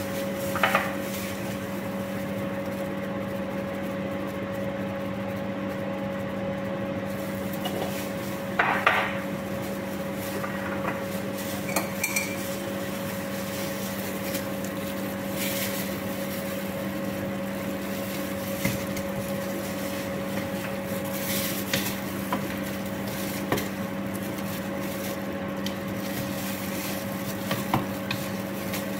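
Scattered clinks and knocks of spice jars and a wooden spoon against a cooking pot, the loudest clatter about nine seconds in, over a steady kitchen-appliance hum.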